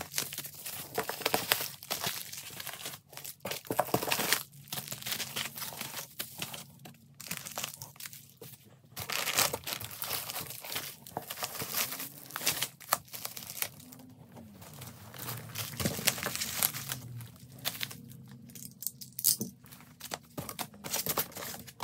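Bubble wrap and plastic bags crinkling and rustling as wrapped packages are handled and lifted out of a cardboard box, in irregular crackles throughout.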